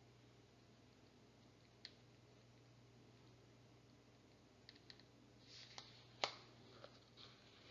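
Near silence: room tone with a low steady hum and a few faint scattered clicks, bunched in the second half, the sharpest a little after six seconds in.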